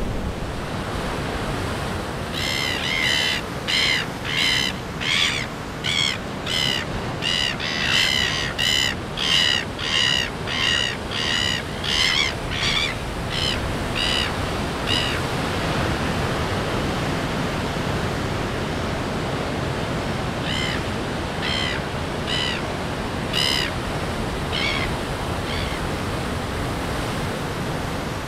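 Surf breaking and washing over rocks with a steady rush. Over it a red-billed gull calls again and again: a run of about twenty calls, nearly two a second, then a few more later on.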